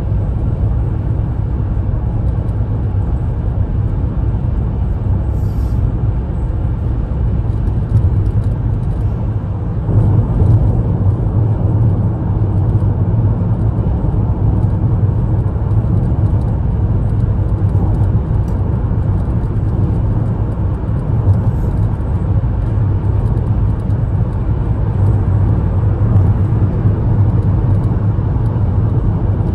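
Car on the move: a steady low rumble of road and engine noise, getting slightly louder about ten seconds in.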